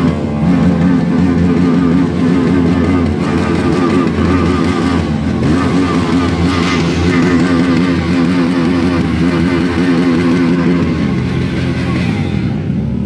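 Several motorcycle engines running close together, a steady loud drone of overlapping engine notes that wavers a little in pitch.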